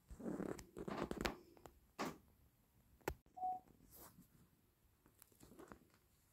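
Faint handling noise: scattered clicks and knocks with rustling in the first second or so, and one short beep about three and a half seconds in.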